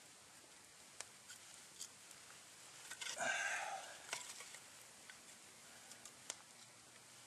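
Quiet campfire of green wood with a few sharp pops. About three seconds in comes a brief, louder rustling scrape as split firewood is handled beside the fire.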